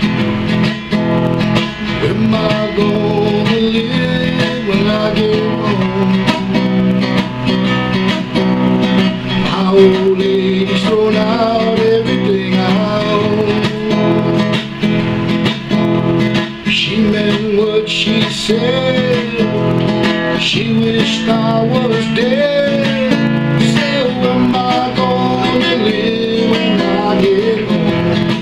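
Nylon-string classical guitar playing an instrumental introduction: strummed and picked chords with a melody line.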